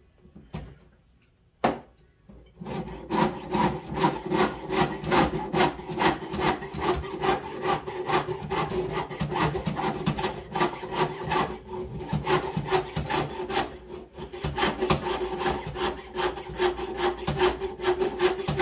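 Jeweler's saw with a fine blade cutting sheet metal: after a single click about a second and a half in, rapid, even back-and-forth sawing strokes start about three seconds in and continue, with the blade ringing faintly on each stroke.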